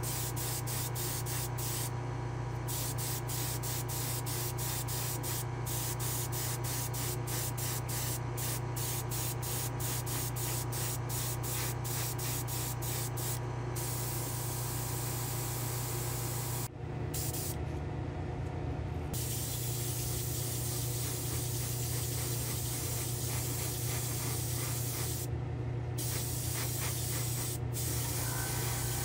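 Airbrush spraying paint: a steady hiss of compressed air and atomised paint over a constant low hum. About 17 seconds in there is an abrupt cut to the airbrush spraying urethane clearcoat, with the same kind of hiss.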